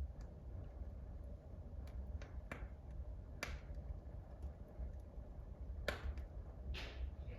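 Wood fire in a wood-burning stove crackling, with a few sharp, irregular pops, the loudest about six seconds in, over a low steady hum.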